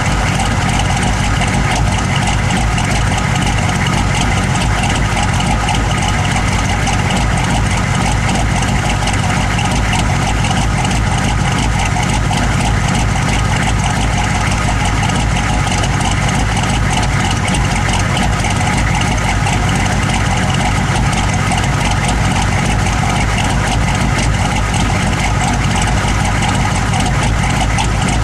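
Engine idling steadily but roughly, the rough idle whose cause the owner is trying to find.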